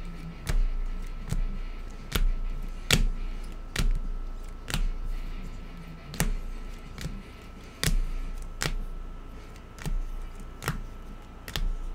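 Football trading cards being set down one after another on a table, a sharp tap roughly every second, with a faint steady whine underneath.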